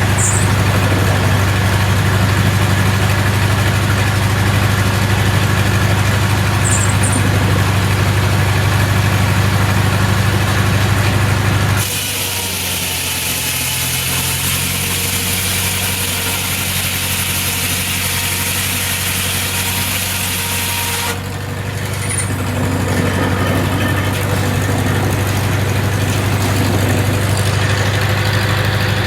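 Engine-driven sawmill machinery running steadily at constant speed with a deep even hum. For about nine seconds in the middle, a loud high hiss cuts in suddenly and the hum drops back, then it returns to the earlier steady running.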